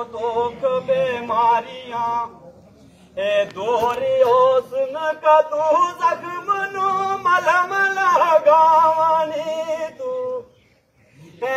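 A man singing a kalaam (devotional verse) solo without accompaniment, in long ornamented phrases with held notes: a short phrase, a pause of about a second, then one long phrase ending on a sustained note, with a brief silence near the end.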